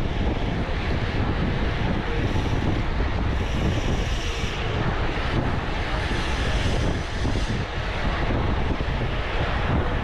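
Wind rushing over the microphone of an action camera carried along on a road bike at speed: a loud, steady rushing with a strong low rumble.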